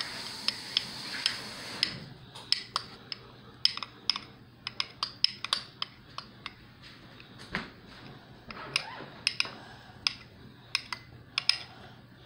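Metal spoon clinking and scraping against a bowl and a small metal baking pan as cake batter is spooned out: many short, irregular clicks.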